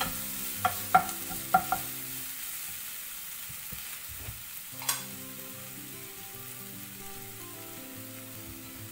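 Onions, grated carrot and tomato frying in a nonstick pan, stirred with a wooden spatula, over a steady sizzle. The spatula knocks against the pan several times in the first two seconds and once more near the middle, then the sizzle carries on alone.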